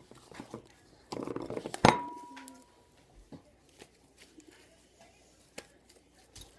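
Slime being mixed in a bowl: a second of messy stirring noise, then a sharp clink against the bowl that rings briefly, followed by a few faint scattered clicks.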